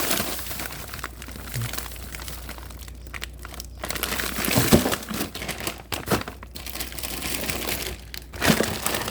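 Plastic bags of frozen fruit crinkling and rustling as they are handled, with a couple of louder knocks, about halfway through and near the end.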